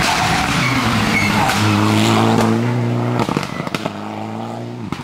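Mitsubishi Lancer Evolution X rally car's turbocharged four-cylinder engine running loud as the car passes close by on a tarmac stage, then holding a steady note as it pulls away through the bend. Several sharp cracks from the exhaust come about three to four seconds in.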